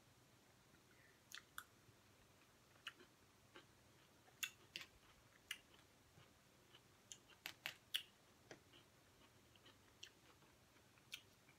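Quiet close-up eating sounds: scattered sharp clicks and smacks of chewing, along with a plastic fork scooping from a small side cup.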